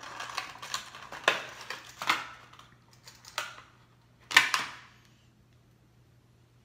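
Stiff clear plastic lure packaging crinkling and crackling as it is pried open by hand, with one loud sharp snap about four and a half seconds in.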